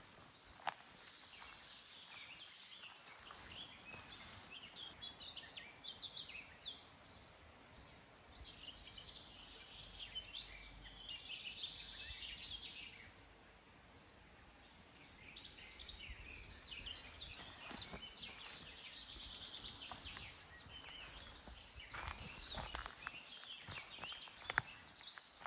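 Faint woodland birdsong: several birds singing in short chirping phrases that come in bouts, with a few footsteps on the trail near the end.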